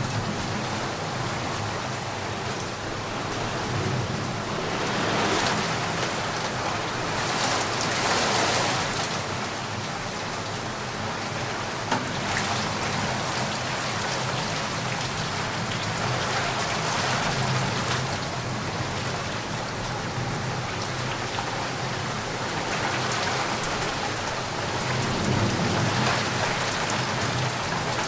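Steady heavy rainfall hissing on surfaces, with low rolls of thunder swelling up and fading several times, and one short sharp tap about twelve seconds in.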